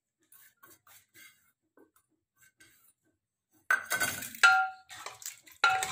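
Steel ladle clanking against an aluminium pressure cooker while stirring a curry: three ringing metallic knocks starting a little past halfway, after a few faint light taps.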